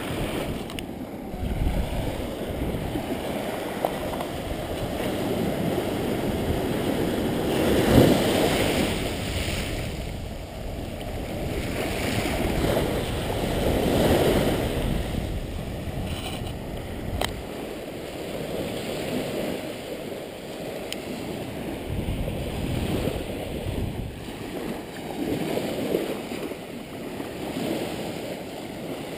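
Small ocean waves breaking and washing up a sandy beach, the surf swelling and easing every few seconds and loudest about eight seconds in. Wind rumbles on the microphone underneath.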